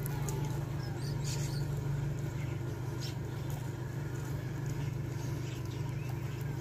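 Steady low hum of an idling engine, with a few faint high chirps about one and three seconds in.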